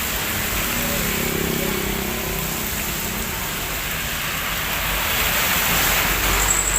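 Heavy rain falling steadily in an even hiss. The sound swells louder about five seconds in and eases again near the end.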